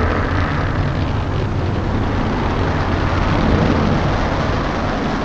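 Delta II rocket climbing away after liftoff, its first-stage main engine and six ground-lit solid rocket motors firing: a loud, steady, deep rumble.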